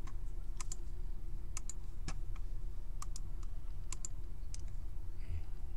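Scattered clicks of a computer mouse and keyboard keys, about a dozen irregular taps, as a list is copied and pasted into a spreadsheet, over a steady low hum.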